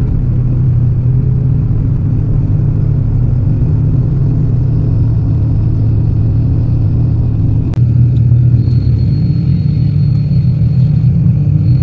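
Tour bus engine and road noise heard from inside the cabin: a steady low rumble on a climbing mountain road. About two-thirds of the way in a single sharp click, after which the rumble is a little louder and a thin high whine sits above it.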